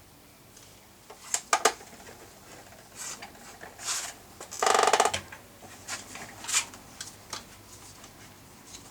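Hands working the speaker wiring and its push-on connectors: scattered small clicks and knocks, a quick group of sharp clicks a little over a second in, and a brief ratchet-like rattle about halfway through.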